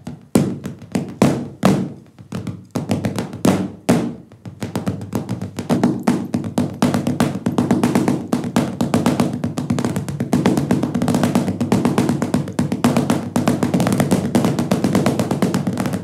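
Drumsticks and hands tapping a rhythm on furniture and on knees, played as a drum part without drums. A few spaced strokes come first, then from about four seconds in a fast, continuous run of taps.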